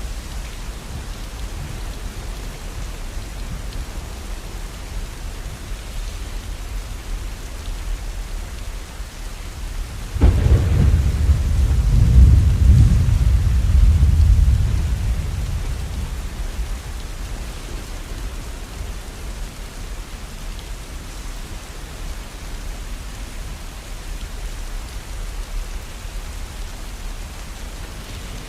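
Steady falling rain with a clap of thunder about ten seconds in, its deep rumble rolling for several seconds before fading back under the rain.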